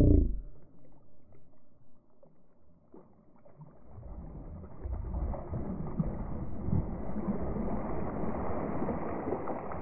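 A hooked Murray cod thrashing and splashing at the surface of the water. Faint at first, the splashing grows louder about four seconds in and keeps on as a run of uneven splashes.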